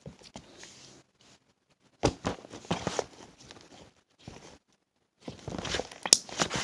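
Slime being kneaded and stretched by hand, with wet squishing and crackling clicks in two spells, about two seconds in and again from about five seconds in.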